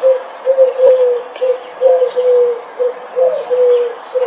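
A dove cooing a repeated three-note phrase: short note, long note, short note, about one phrase every second and a half.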